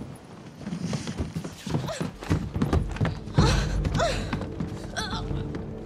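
Film soundtrack of a tense scene: clattering and thuds with several short shouted cries from men, while a low music drone comes in about two seconds in and grows.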